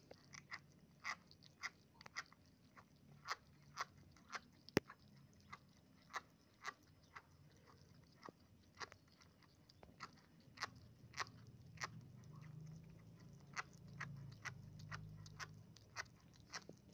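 Kittens chewing sticky steamed shark meat and rice close to the microphone: a run of sharp smacking clicks, about two a second, with one louder click about five seconds in.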